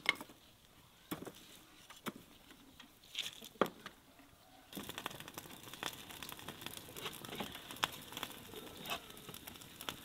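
A few separate knocks and clicks of split firewood being handled, then from about five seconds in the steady crackle of a freshly lit split-wood fire catching under a metal barrel.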